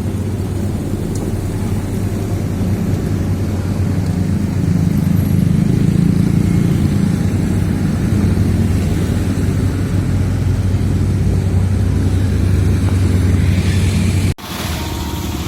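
Heavy diesel engine of construction machinery running steadily with a deep low hum. It swells a little in the middle, then breaks off abruptly near the end and a different engine sound follows.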